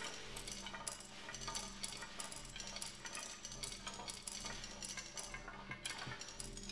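Electronic composition playing back: a dense, irregular scatter of sharp clicks and ticks over steady low held tones.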